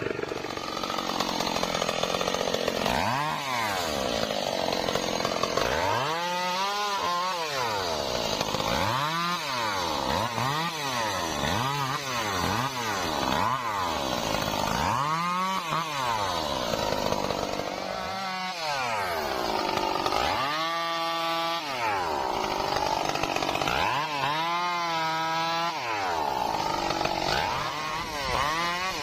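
Stihl MS 382 two-stroke chainsaw cutting trembesi wood, its engine revving up and dropping back again and again, about every one to two seconds, over the rasp of the chain in the log.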